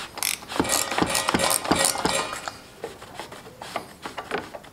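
Spin-on oil filter being unscrewed by hand from a lawn tractor engine, with paper towels rustling under it and small metallic clicks and knocks. The handling is busiest for the first two and a half seconds, then thins to a few scattered clicks.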